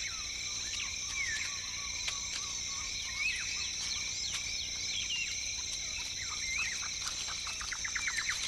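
Tropical rainforest ambience: a steady high insect drone on several pitches, with many short whistled bird calls over it and a quick run of notes near the end.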